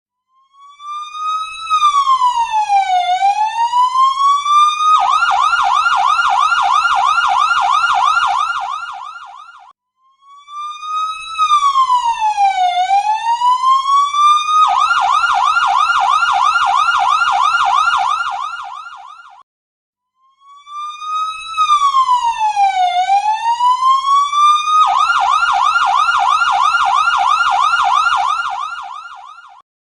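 Ambulance siren repeating a cycle three times. Each cycle is a wail that falls and climbs back in pitch for about five seconds, then a fast warbling yelp for about four seconds, then a brief break.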